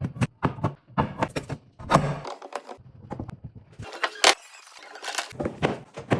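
Wooden pieces knocking and clattering together: an irregular run of sharp knocks, with a few louder hits about two seconds in and again past four seconds.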